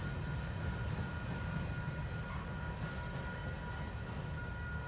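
Rear cars of a freight train, covered hoppers and container cars, rolling away on the rails. Their wheels on the track make a steady low rumble with a few faint, steady high ringing tones, slowly fading.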